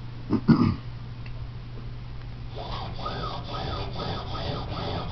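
A short knock about half a second in, then from about halfway a rhythmic rubbing or scraping at about two strokes a second, over a steady low hum.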